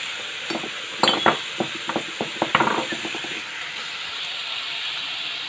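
Onions and carrots sizzling steadily in a frying pan. A run of light clicks and knocks falls from about half a second in to about three seconds in.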